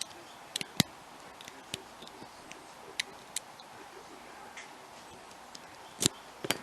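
Lock pick and tension wrench working the pins of a pin-tumbler challenge lock held in hand: scattered sharp metallic clicks, irregularly spaced, with a loud one just under a second in and a pair about six seconds in.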